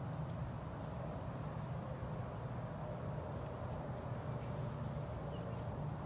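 Outdoor background: a steady low rumble with a faint hum, and two faint short high chirps, one about half a second in and one near four seconds in.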